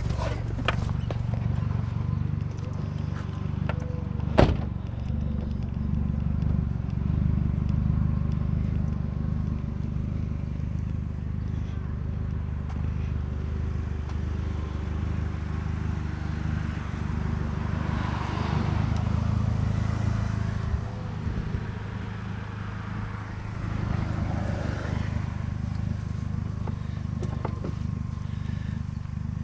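Car running and driving, a steady low drone with some road hiss, with one sharp knock about four seconds in.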